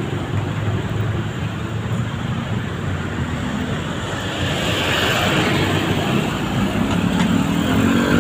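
Road traffic passing close by: a steady engine rumble with tyre noise, a vehicle going past about halfway through, and another vehicle's engine drawing nearer and louder near the end.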